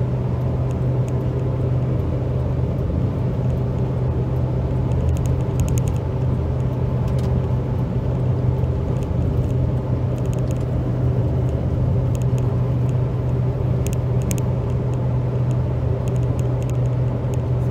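Lifan X60 SUV cruising at highway speed, heard inside the cabin: steady engine and tyre noise with a low drone.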